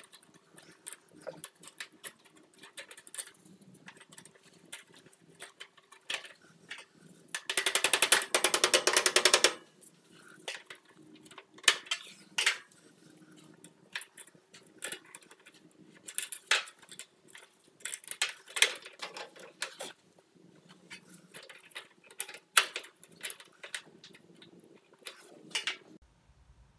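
Small metal clicks and taps as hair-pin cotter pins are worked into the screws joining a gas grill's metal cross member to its stainless burner tubes, with a brief rapid rattle about eight seconds in.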